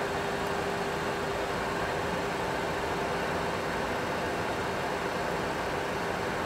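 Steady cockpit noise of a Boeing 737 Classic full flight simulator in a climb: simulated engine and airflow noise with a steady hum running through it.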